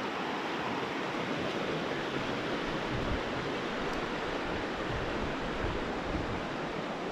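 Shallow rocky mountain stream rushing steadily over rocks and small rapids, with a few low thuds from about three seconds in.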